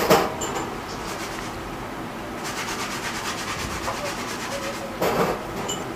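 Background noise of a small eatery's counter: a steady din, with brief louder sounds right at the start and again about five seconds in.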